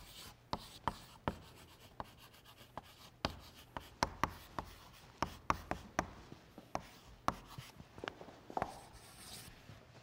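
Chalk writing on a blackboard: an irregular run of sharp taps and short scratchy strokes as a phrase is written out, stopping near the end.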